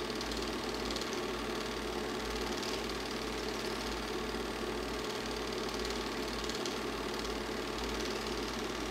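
Super 8 film projector running: a steady mechanical whirr and clatter of the film transport.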